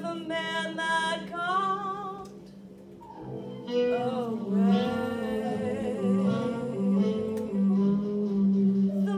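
A woman singing a slow torch-song ballad into a microphone, holding long notes with vibrato. Her voice drops away for about a second a third of the way in, then returns on a long, wavering held line.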